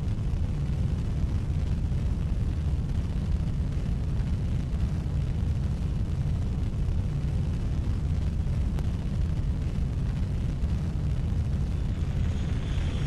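Wind buffeting the microphone: a steady low rumble with little high-pitched content.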